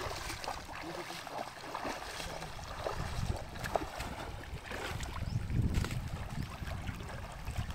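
Feet splashing through a shallow river as a person wades and runs, many quick splashes over the steady rush of the stream. Wind rumbles on the microphone from about halfway through.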